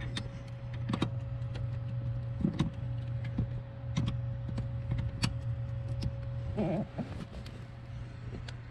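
Scattered metallic clicks and clinks of a wrench tightening the brake light switch's 14 mm lock nut, over a steady low hum.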